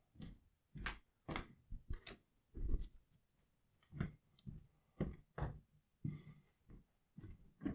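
Footsteps on a hardwood floor: a dozen or so irregular steps about half a second apart, each a short knock.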